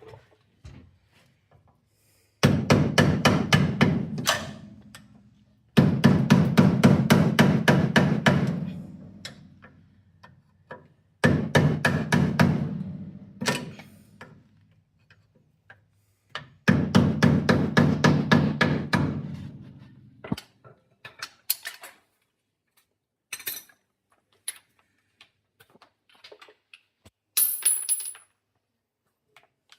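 A power tool cutting through steel in four bursts of a few seconds each, removing the section that has to go so the disc-brake caliper bracket can line up. Light clicks and knocks of tools follow.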